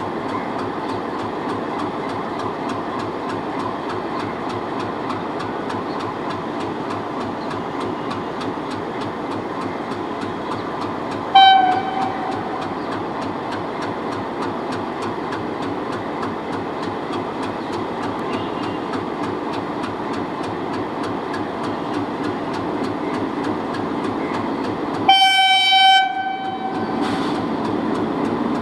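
ALCO WDM-3D diesel locomotive's V16 engine idling steadily with an even pulsing beat. A diesel locomotive horn sounds a short blast near the middle and a louder blast of about a second near the end.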